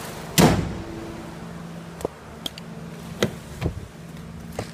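Nissan Sentra engine idling with a steady low hum, with one loud clunk about half a second in and a few lighter metallic clicks and taps as the loose hood prop rod is handled and put back into its clip. With the rod secured, the rod's rattle against the engine is no longer heard.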